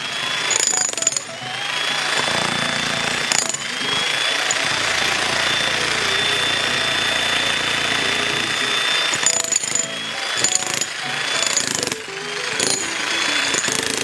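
Electric demolition jackhammer (XtremepowerUS 3600W) chiselling concrete in several runs with short pauses between them. Each time it restarts, its motor whines up in pitch before settling to a steady high whine under the hammering.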